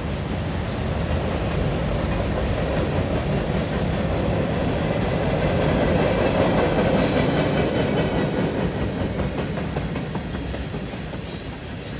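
Freight cars (tank cars, covered hoppers and boxcars) rolling past: a steady rumble of steel wheels on rail, growing louder to about halfway through and easing off near the end.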